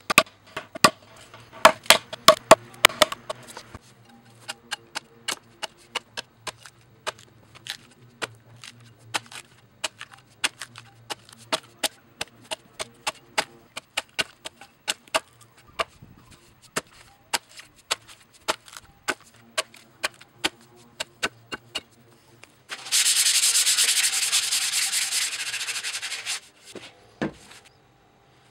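Broad axe hewing a log: sharp chops of the blade biting into the wood, about one or two a second, loudest in the first few seconds. Near the end there is a loud, harsh scraping noise lasting about three seconds.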